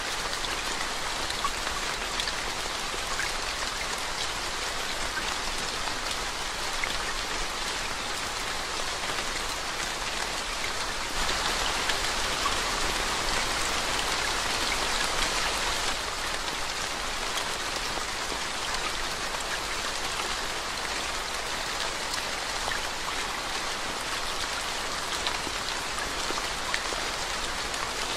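Steady rain falling and splashing into puddles of standing water. The rain grows somewhat heavier for about five seconds near the middle, then eases back suddenly.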